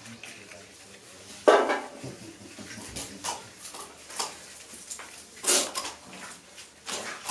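Hands crinkling gold-foil paper cracker wrappers and rustling paper confetti in a plastic basin while the crackers are stuffed. A few sharper clattering knocks stand out, the loudest about a second and a half in and another about five and a half seconds in.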